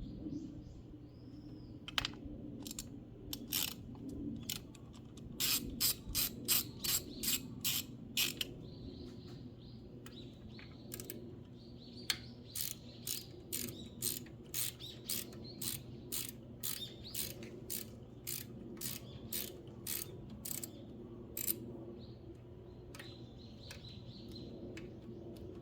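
Ratchet wrench clicking in runs of short strokes, about two to three clicks a second, as a spark plug is worked loose or run in. Faint bird chirps behind.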